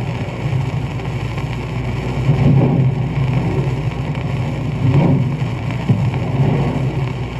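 Surf: waves breaking and washing on a shore as a steady rumbling wash, swelling twice, about two and a half and five seconds in, with old record surface noise underneath.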